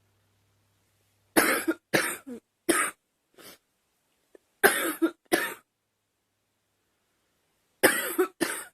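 A young woman coughing in bouts: a run of about four coughs, the last one faint, then a pair of coughs, and two more near the end.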